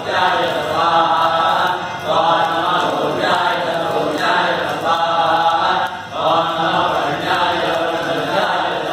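Several male voices chanting Vedic mantras together for a Rudra homa, in steady phrases of a second or so, each ending in a brief pause for breath.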